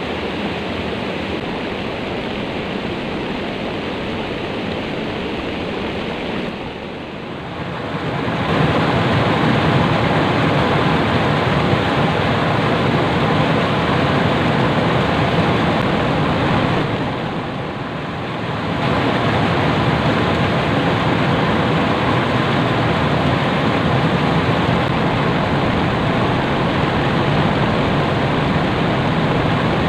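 Steady rushing of river water, a constant loud wash that eases briefly twice.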